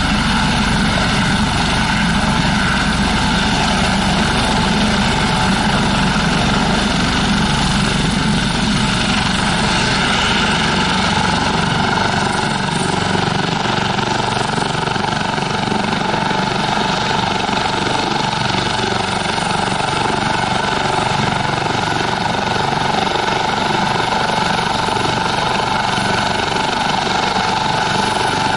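Eurocopter AS365 N3+ Dauphin twin-turbine helicopter running on the ground with its main rotor turning: a steady turbine whine over rotor and fenestron tail-fan noise. The deepest rumble eases about twelve seconds in.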